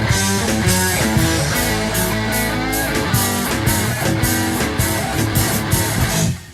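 Late-1970s rock band recording with electric guitar, bass and drums playing, the cymbals keeping a steady beat. The music stops sharply near the end.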